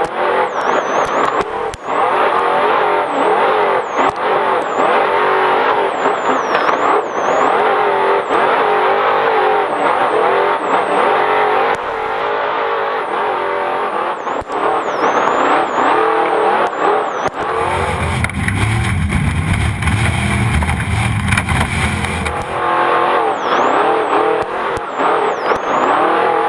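Off-road Trophy Truck's race engine running hard, heard from on board, its revs rising and falling rapidly as it is driven flat out. About two-thirds of the way through, for some five seconds, the engine note gives way to a deep, low rumble, then returns.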